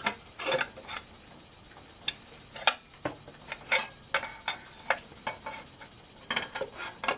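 Irregular light metallic clicks and clinks of a saw blade and arbor bushing being worked onto a TackLife miter saw's arbor, the bushing sticking and not seating easily.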